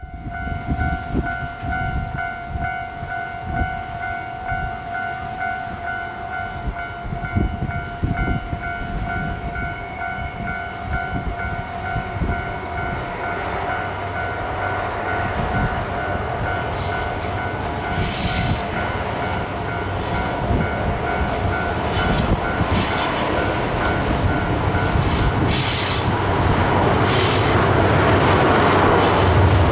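Diesel-hauled freight train at a station: low knocking and engine rumble, with a steady ringing tone that stops about 25 seconds in. Near the end a low engine note and a rushing noise grow louder.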